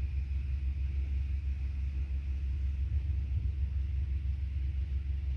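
Steady low outdoor rumble, with a faint thin high tone held above it and no distinct events.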